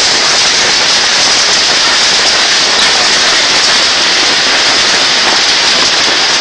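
A hailstorm: hailstones and rain pelting down hard, a loud, steady, dense hiss.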